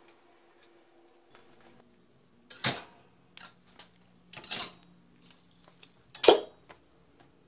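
Angle grinders hung onto bent steel-rod hooks, metal clanking on metal: three sharp clanks about two seconds apart, the last the loudest, with lighter clinks between.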